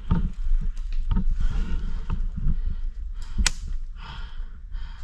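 Close-up movement noise from a body-worn camera: scuffing and rustling in dry leaves and knocks from gear handling, with one sharp snap about three and a half seconds in.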